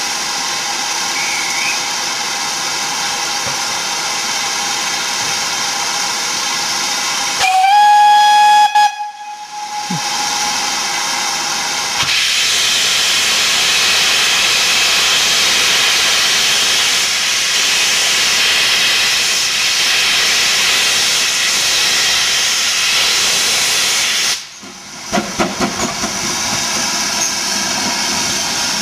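GWR 4575-class small prairie tank locomotive No. 5552 hissing steam, then giving one blast of its steam whistle about a third of the way in. A louder, steady roar of steam from its open cylinder drain cocks follows as it starts away, and the first uneven exhaust chuffs come near the end.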